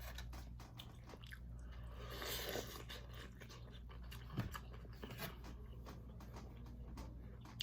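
Close-miked eating: chewing and biting into seafood-boil food, with scattered small clicks and crunches and a brief louder noisy patch about two seconds in.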